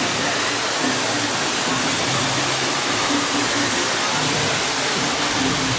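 Waterfall pouring down over rockwork: a steady, unbroken rush of falling water.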